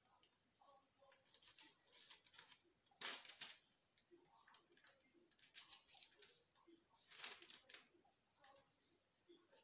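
Faint, short scrapes and paper rustles of a knife cutting a log of cookie dough into pieces on parchment paper, several strokes a second or two apart.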